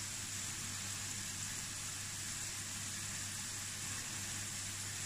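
French fries frying in a pan of hot oil: a steady, even sizzle, with a low constant hum underneath.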